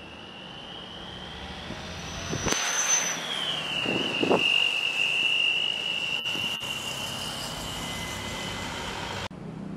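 Boeing 737-800's CFM56 jet engines at take-off thrust during the take-off roll. A steady high whine rides over a rising roar that grows louder over the first few seconds, then drops away suddenly near the end.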